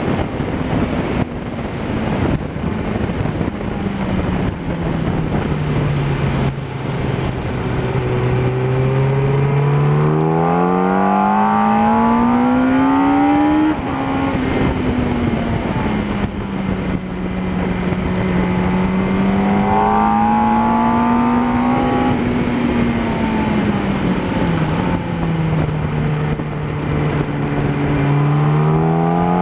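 Yamaha R1 inline-four sportbike engine heard from on board at track speed, with wind noise over it. The engine note sinks low, climbs hard from about a third of the way in, drops suddenly near the middle, holds, falls again as the revs ease, then climbs once more near the end.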